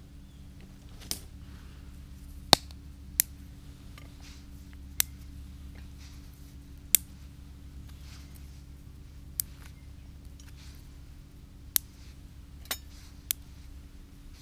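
Wood burning in a stainless-steel wood gasification camp stove, crackling with sharp single pops at irregular intervals, about nine of them, every second or two.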